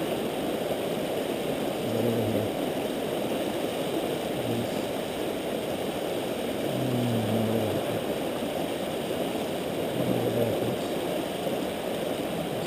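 Steady rush of a river's fast current, with a few short, low hums at uneven intervals.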